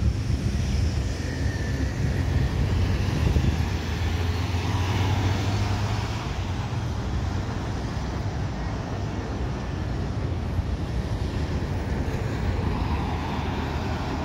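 Steady outdoor rumble of road traffic mixed with the distant jet engines of an Airbus A320 on approach. A low engine hum is strongest in the first six seconds.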